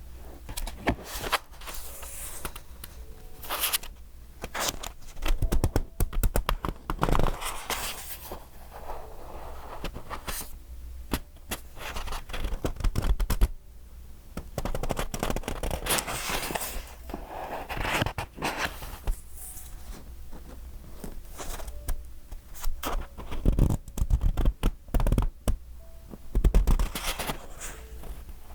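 Pages of a decorated A5 paper journal being turned and handled: irregular rustling, crinkling and scraping of paper, with occasional soft knocks.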